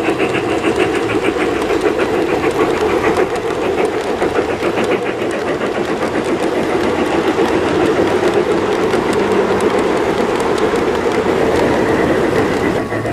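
Garden railway model steam train running past close by: the locomotive's motor and gearing hum steadily, with rapid clicking of the wheels on the track as the coaches roll by.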